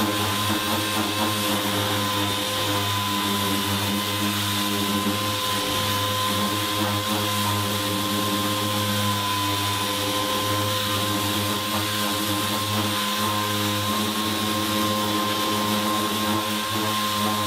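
Air-powered orbital sander running steadily with a high whine, its pad sanding cured body filler on a thin sheet-metal truck panel.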